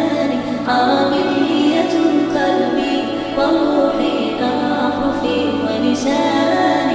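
Arabic nasheed sung a cappella: a lead male voice, pitched up by speeding the track up, over layered backing voices holding a steady low drone, all with heavy added reverb.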